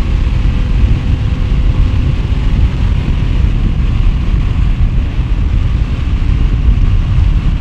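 Wind rushing over the microphone of a motorcycle moving at highway speed: a loud, steady, low rumble of wind and road noise.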